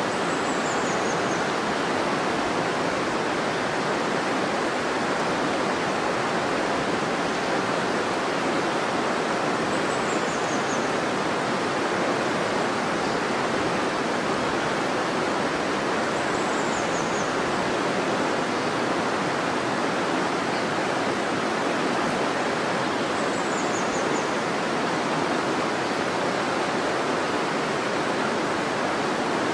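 River water flowing steadily, a constant even rush of water noise. A faint, high, short descending chirp comes four times.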